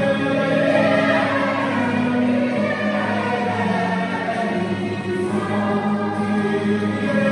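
Background music with choir-like singing on long, sustained notes.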